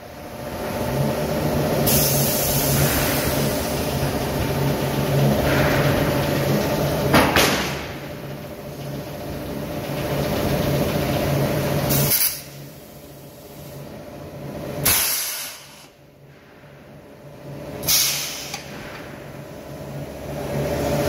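Steel-coil cut-to-length line running, its drive motors humming steadily while steel plate moves over the roller conveyor to the stacker. Several short hissing bursts, about five, break in at intervals, and the hum drops away for a while about twelve seconds in.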